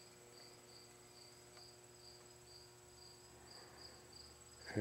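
Near silence: faint room tone with a soft high-pitched chirp repeating a few times a second and a thin steady high whine.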